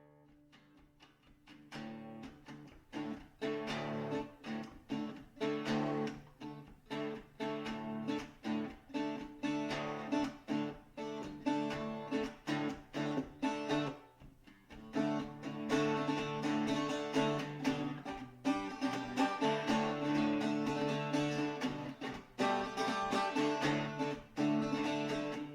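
Instrumental background music led by plucked strings. It fades in about two seconds in, thins briefly around the middle, then plays fuller.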